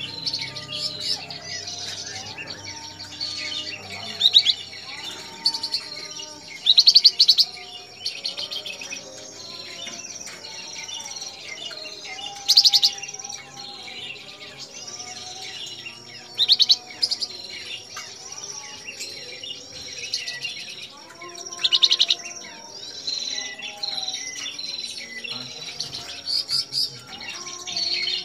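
A caged flamboyan songbird calling over and over among other caged birds: loud, short, rapid rattling chirps every few seconds, over a steady mix of lower whistled notes.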